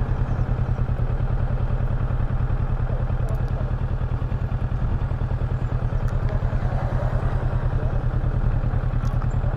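Kawasaki Versys 650's parallel-twin engine idling steadily, with an even low pulse.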